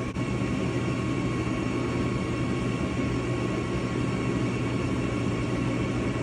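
Gas furnace starting up: a steady motor hum, with one sharp click right at the start as it cycles toward igniter glow.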